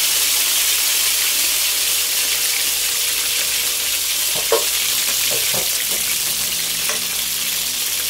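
Chile-soaked pambazo bread frying in hot oil in a skillet: a steady sizzle, with a few short knocks about halfway through and again near the end.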